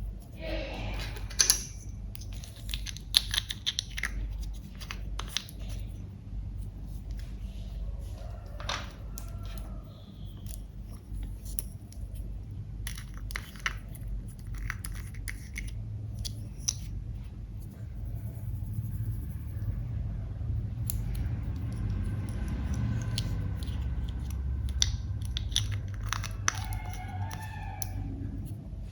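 Clear slime being worked by hand with makeup mixed in: irregular sticky clicks, pops and crackles, over a low steady hum.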